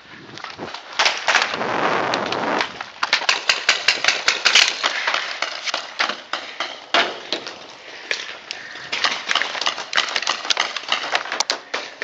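Paintball markers firing: sharp cracks coming several a second in clusters, thickest around four to five seconds in and again through the last few seconds.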